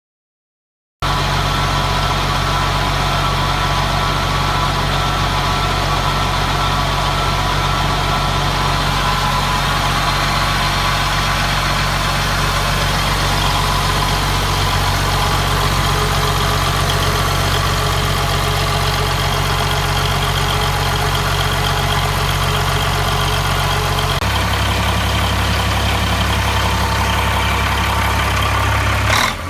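1994 Maxigrind 425 horizontal grinder's engine running steadily. It starts about a second in, and its low note shifts about three-quarters of the way through as the engine speed changes.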